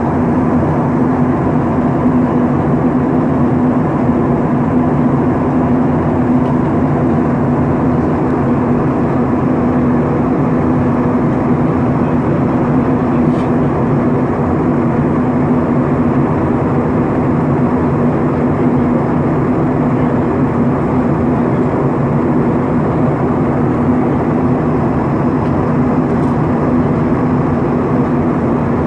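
Jet airliner cabin noise in flight: the steady rush of engines and airflow heard from inside the cabin, with a constant low hum under it.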